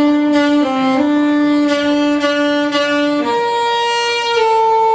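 Saxophone playing a slow jazz melody in long held notes: one low note held for about three seconds with two brief dips, then a step up to a higher note that steps down twice near the end.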